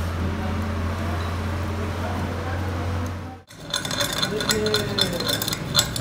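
Stick welding on a truck axle tube, a steady arc hiss over the welding machine's low hum. It stops abruptly about three and a half seconds in, followed by rapid metallic clinks of a chipping hammer knocking slag off the fresh weld bead.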